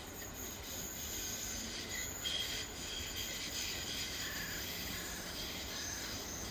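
Bombardier Flexity Swift tram's steel wheels squealing on curved rails as it runs away around the bend, several high shifting tones over a low running rumble.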